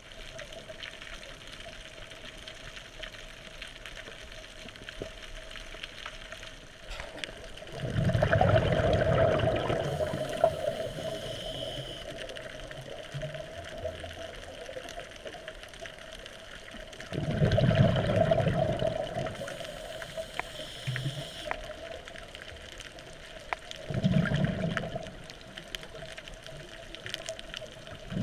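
Scuba regulator exhaust bubbles heard underwater: loud bubbling bursts of about two seconds each as the diver breathes out, every seven to nine seconds, with a quieter steady hiss between them.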